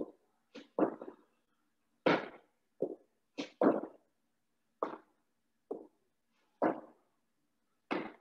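Burpees on a rubber gym floor: a series of short, separate thuds and slaps as hands and feet hit the mat and land from the jumps, with hand claps at the top of the jumps.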